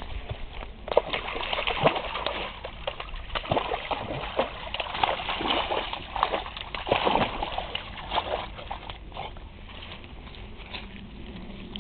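A Briard dog wading and splashing through a shallow brook, with irregular splashes and sloshing water that die down near the end.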